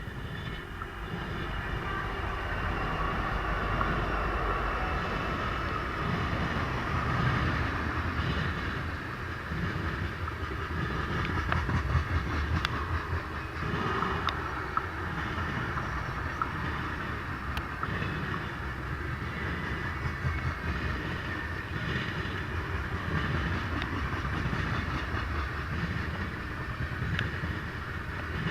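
Freight train cars rolling past, wheels clacking over the rail joints in a steady run of low knocks and sharp clicks.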